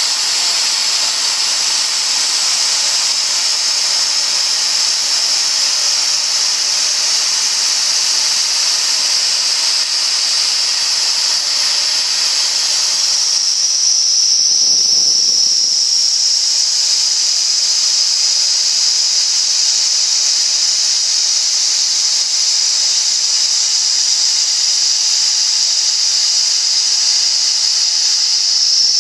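CNC spindle running at high speed while a small end mill cuts a pocket into a throat plate: a steady high-pitched whine over cutting noise, the whine stepping slightly higher about halfway through.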